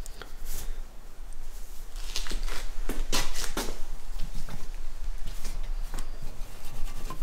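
Hands working greased crankshaft seals and bearings on a workbench: scattered light clicks and rubbing, busiest about two to four seconds in.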